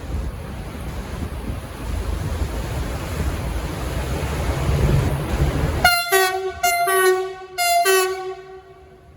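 V/Line VLocity diesel railcar set running loudly with engine and rail rumble, then sounding its horn in three short blasts about six seconds in.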